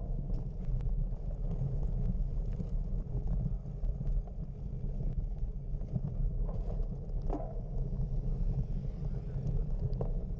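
Wind buffeting an outdoor microphone: a steady low rumble with no break.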